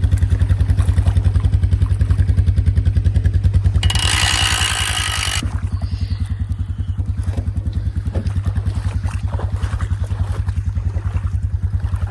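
ATV engine idling steadily with an even, fast putt-putt of about ten beats a second. A brief hiss cuts in about four seconds in.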